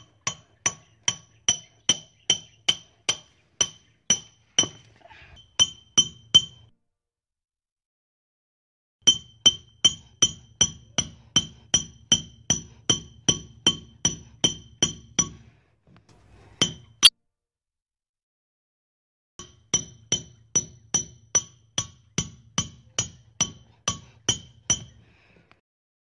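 Hammer hitting a nail in steady runs of about two and a half blows a second, each blow a sharp knock with a bright metallic ring. There are three runs with pauses of a couple of seconds between them, and a single louder blow in the second pause.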